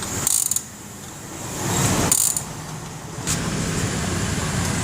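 A motor vehicle running, its sound swelling and easing, with three short sharp hisses.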